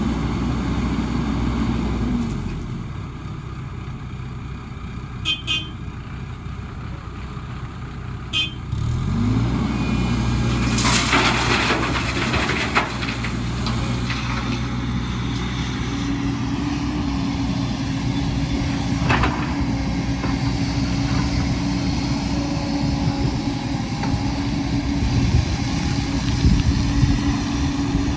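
Diesel engine of heavy earthmoving machinery running: it drops to a lower, quieter note about two seconds in, then revs back up about nine seconds in and holds a steady working pitch. A few short sharp knocks come along the way, and there is a rattling, scraping stretch about eleven seconds in.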